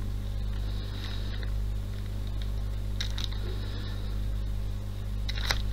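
Steady low electrical mains hum with faint hiss, the recording's background tone; a couple of faint short rustles about a second in and about three seconds in.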